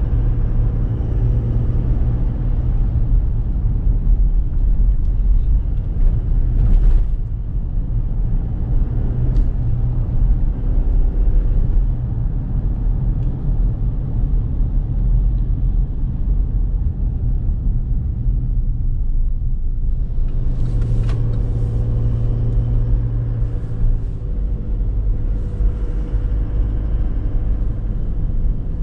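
Chevrolet Trailblazer 2.8 turbo diesel four-cylinder engine and road noise while driving: a steady low rumble whose engine note shifts as the speed changes, with a few brief knocks.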